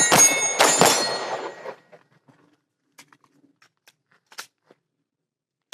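Pistol shots fired rapidly during a timed practice stage, two in the first second, with steel targets ringing after the hits; the ringing dies away by about two seconds in, leaving a few faint clicks and taps.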